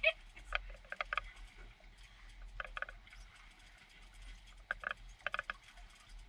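Fishing reel clicking in several short bursts of rapid clicks as a hooked fish is reeled in.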